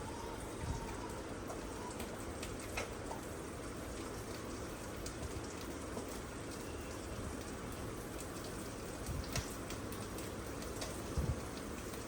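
Egg omelette sizzling steadily in a hot frying pan, with a few light clicks and taps.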